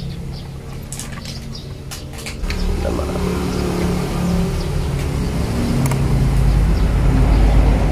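A motor vehicle's engine running as a low steady hum that grows louder about two and a half seconds in and again near six seconds. A few sharp clicks come in the first two seconds.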